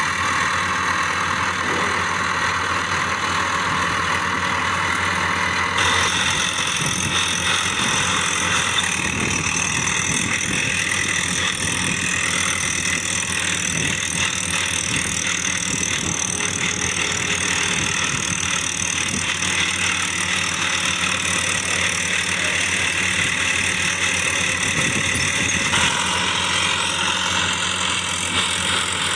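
Steady idling sound of a tractor engine, as played with toy tractors. Its tone changes abruptly about six seconds in and again near the end.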